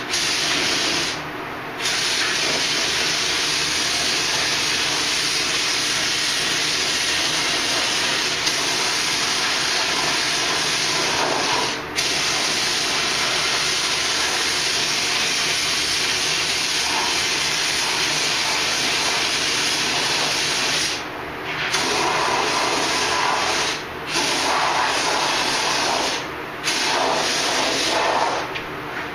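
Compressed-air paint spray gun hissing steadily as paint is sprayed, cut off briefly several times as the trigger is let go between passes.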